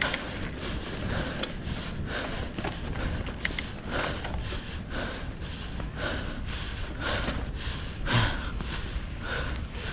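A cyclist breathing hard and rhythmically under exertion, about one breath a second, over a low wind rumble on the microphone.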